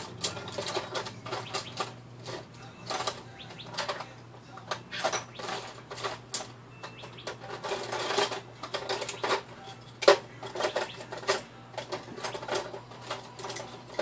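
Metal hand tools clinking and clattering as they are rummaged through, irregular clicks and knocks with one louder knock about ten seconds in.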